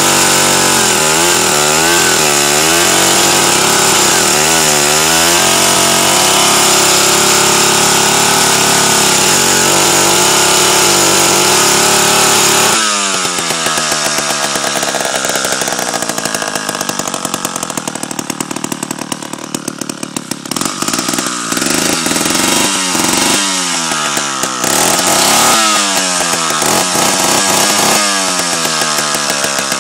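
David Bradley 360 dual-bar chainsaw running at high revs, its pitch wavering, for about the first thirteen seconds. It then drops suddenly to lower, uneven running, with the engine note repeatedly rising and falling as the throttle is blipped.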